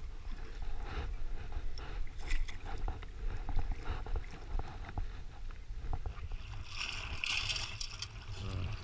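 Lake water sloshing with a low rumble and scattered small knocks as someone wades. About seven seconds in comes a louder splash, lasting about a second, as a perforated stainless steel sand scoop is dug into the lakebed.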